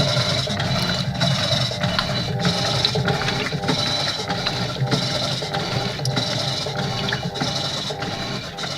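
Electrolux washing machine agitating in turbo mode: a steady mechanical churning with a repeating back-and-forth rhythm.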